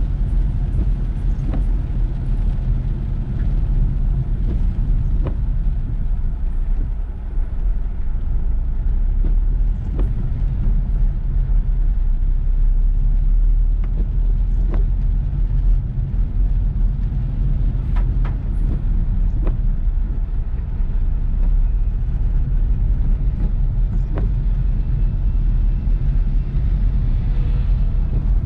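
Car driving through heavy rain: a steady low road rumble of engine and tyres with an even hiss over it. A short sharp tick sounds now and then.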